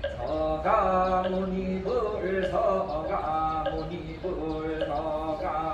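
Buddhist ceremonial chanting: voices singing long held notes that step up and down in pitch, over a low steady rumble.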